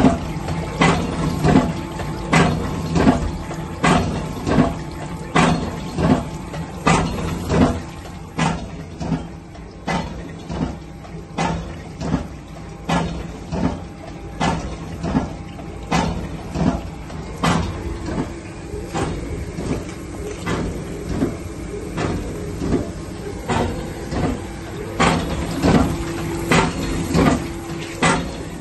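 Ruhle IR56 meat injector running, its needle head stroking in a steady rhythm of about four knocks every three seconds over a steady machine hum.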